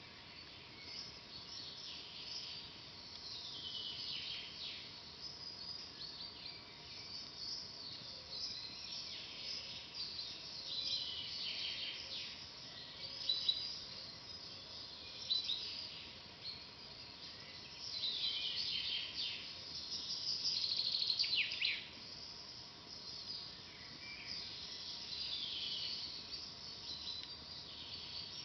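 Songbirds singing in a forest: several overlapping voices of short chirps, rapid trills and a few falling whistled phrases over a faint steady hiss, with the busiest stretch of song a little past the middle.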